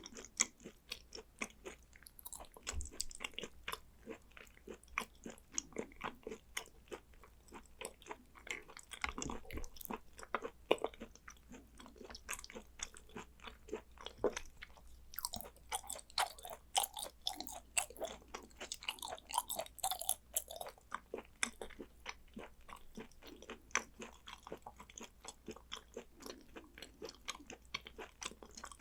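A person chewing and eating raw hanwoo beef with sea urchin roe: a continuous run of wet mouth clicks and smacks, several a second.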